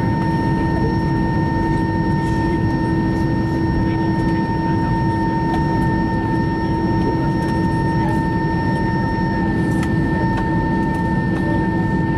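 Airbus A320 cabin noise while taxiing with the jet engines at idle: a steady rumble under a steady, even whine that holds throughout.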